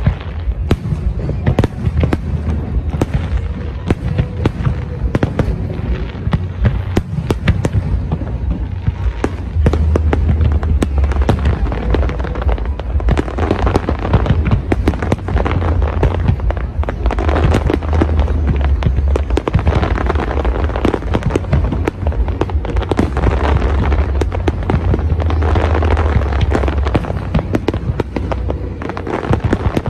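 Fireworks display: a rapid, dense run of bangs and crackles from aerial shells bursting, growing louder and busier about ten seconds in.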